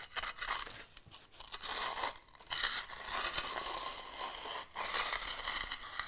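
Hand concrete edger scraping along the edge of a freshly poured slab, in several long gritty strokes with brief pauses between them. This is an early edging pass while the concrete is just setting at the edges, rounding the edge and separating it from the form.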